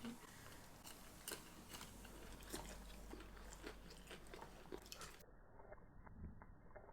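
Faint, irregular crunching and chewing of a fried chicken tender's crispy breading.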